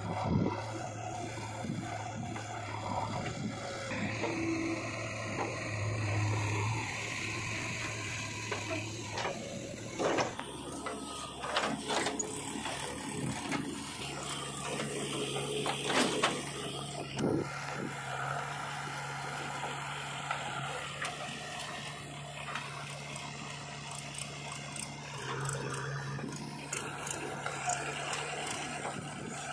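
Diesel engines of a JCB 3DX backhoe loader and a tractor running steadily. The engine hum shifts to a slightly higher note about a third of the way through. Scattered clunks and knocks come around the middle as the backhoe works.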